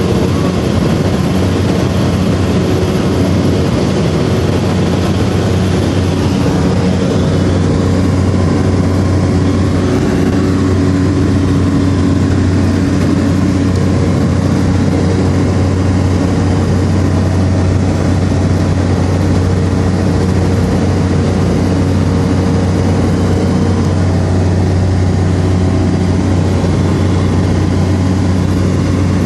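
Propeller engines of a small turboprop plane running at takeoff and climb power, heard from inside the cabin. A steady, loud drone with a deep hum and several steady tones above it.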